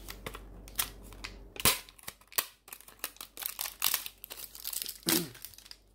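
Plastic wrapping film crinkling and crackling as it is handled and pulled off a new bicycle pedal, in irregular crackles with a few louder snaps.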